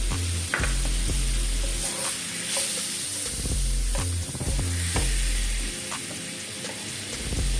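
Garlic and pimento sizzling in hot butter in a pan, with the spoon clicking and scraping as it is stirred. Background music with a low, steady bass line plays under it.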